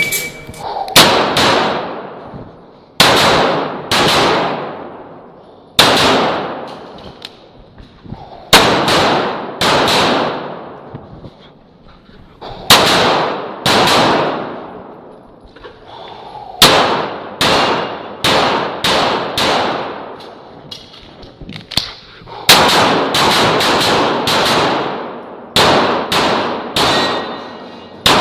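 CZ Shadow 2 pistol fired in quick pairs and short strings of shots through a practical-shooting stage, with pauses of a second or two between groups as the shooter moves or reloads.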